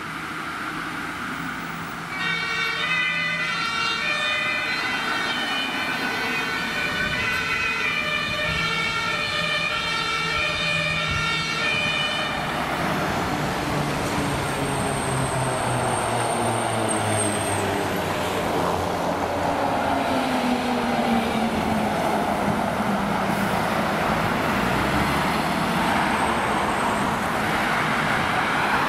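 German two-tone fire brigade siren (Martinshorn) alternating between two pitches from about two seconds in until about twelve seconds. After that, the engines and tyres of the passing fire trucks take over, their pitch sliding down as they go by.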